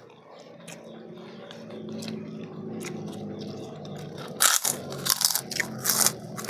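Close-up eating sounds: a mouth chewing, then several loud crunchy bites of crisp food a little past halfway, over a low steady hum in the first part.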